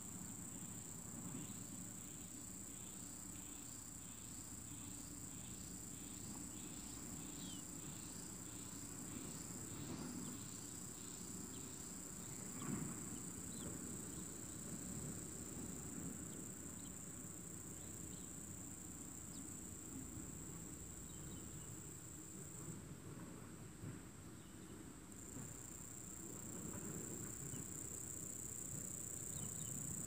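Insects chirring in a steady high-pitched trill that drops out for about two seconds about three-quarters of the way through.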